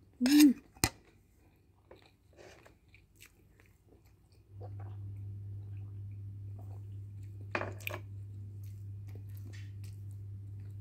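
Close-up eating sounds: a loud short mouth noise and a click in the first second, then soft chewing, and a drink from a mug with a short burst of noise about seven and a half seconds in. A steady low hum starts about four and a half seconds in and carries on underneath.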